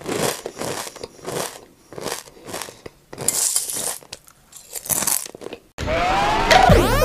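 Irregular crunching noises, a few short bursts a second with brief gaps between them. About six seconds in they stop suddenly and music with sliding tones starts.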